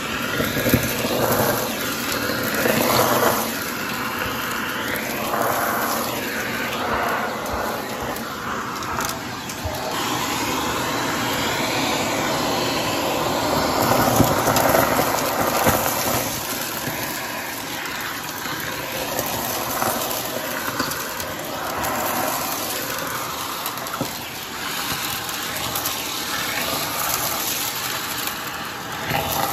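Vacuum cleaner running steadily with a hose tool pressed to carpeted stairs, sucking up glitter, confetti and fluff. The tone of the airflow shifts and swells every few seconds as the nozzle is pushed along and lifted.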